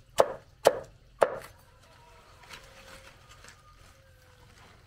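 A large cleaver chopping through a bundle of thick green leafy stalks, three sharp strokes about half a second apart, then a pause before another stroke at the very end.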